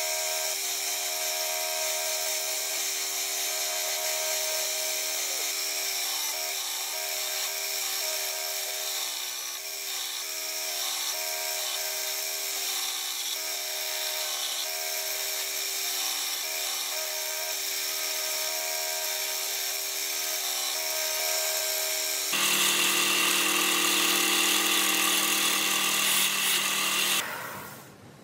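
A Ryobi 370 W belt and disc sander runs steadily as a laminated hardwood mallet handle is ground against its sanding belt. About 22 seconds in the sound changes abruptly and grows louder, then drops away quickly near the end.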